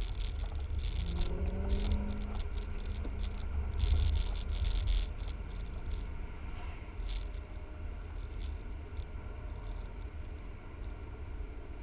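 Inside the cabin of a moving BMW sedan: steady low engine and road rumble, with the engine note rising briefly about a second in as the car pulls. Light ticks and rattles come through over the first half.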